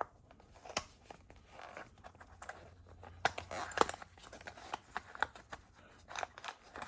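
Parts packaging being torn open and handled by hand: irregular rustling and crinkling broken by sharp clicks, the sharpest a little past the middle.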